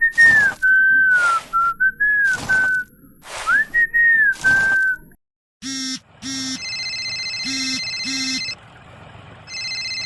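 A whistled tune of gliding notes cut by short whooshing swishes. Then, from about halfway, electronic beeps and a steady synthetic tone that stops and starts again near the end.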